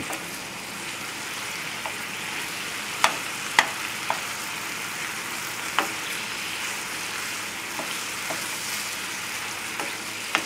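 Chicken pieces, mushrooms and sherry sizzling steadily in a skillet as the wine reduces and thickens over a raised flame, with a few sharp clicks.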